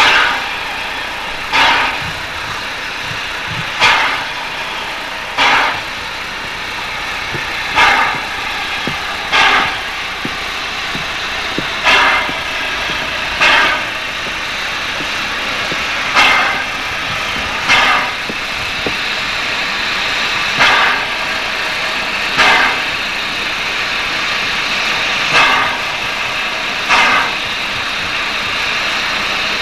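Steam locomotive standing with a steady hiss of steam while its air pump exhausts in short puffs, paired, about every one and a half to two and a half seconds.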